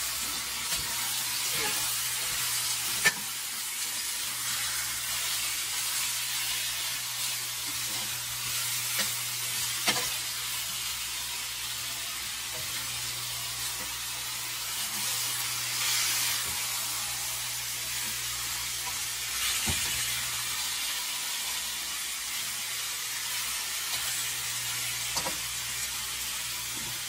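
Marinated boneless chicken thigh pieces sizzling in hot oil in a stainless steel skillet. They are stirred and turned with a wooden spoon and a stainless steel spatula, which now and then knock and scrape against the pan.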